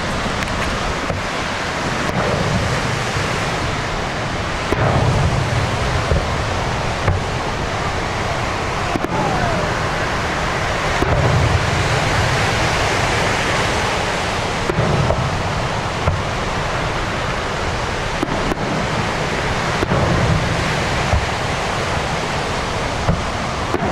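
Aerial fireworks display: deep booms swelling every few seconds and scattered sharp cracks over a steady rushing noise.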